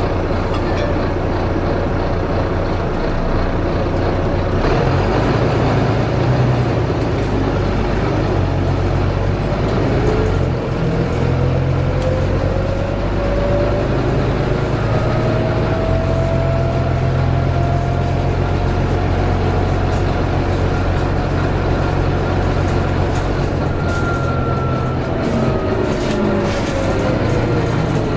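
Volvo B9TL double-decker bus heard from inside the saloon: its 9.4-litre six-cylinder diesel and driveline running under way. A thin whine rises in pitch over several seconds, holds, and falls away again near the end.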